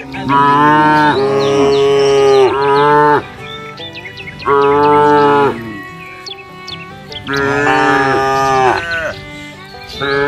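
Cow mooing repeatedly: about five long, loud moos, one after another with short pauses, over faint bird chirps.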